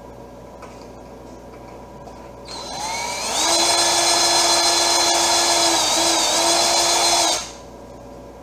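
Cordless drill drilling into a balsa model-airplane wing: the motor spins up about three seconds in with a rising whine, runs steadily for about four seconds with a brief dip in pitch, then stops.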